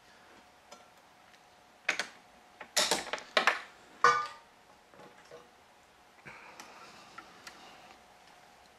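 A quick run of sharp clicks and snaps, a few with a brief metallic ring, from hands working the strings of a badminton racket mounted on a stringing machine, over a faint steady hum. Softer scratching and small clicks follow near the end.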